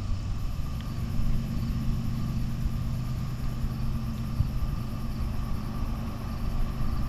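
Distant Norfolk Southern and Canadian Pacific diesel locomotives approaching at the head of a freight train: a low, steady engine rumble.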